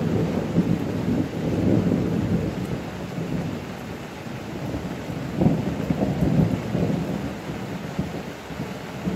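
Thunder rumbling, swelling twice: once in the first couple of seconds and again about five seconds in, over a steady hiss of rain.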